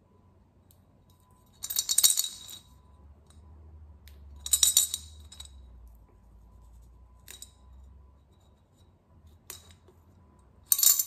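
Coins clinking and sliding against each other and the walls inside a ceramic coin bank as it is tilted. They come in three short bursts of jingling rattle, with a couple of single clicks between.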